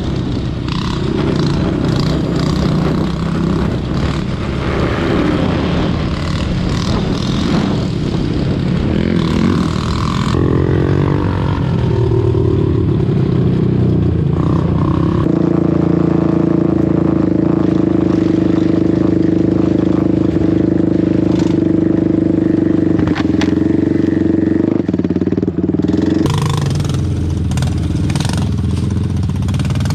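An ATV engine running under throttle while being ridden, its pitch rising and falling with speed through the first half, then held steady for about ten seconds before changing again near the end, with knocks and rattles from the ride.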